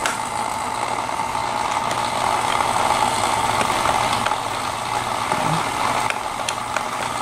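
Battery-powered toy race-track booster running: its small electric motor and spinning wheels give a steady whir. A few clicks sound over it as the plastic toy is handled.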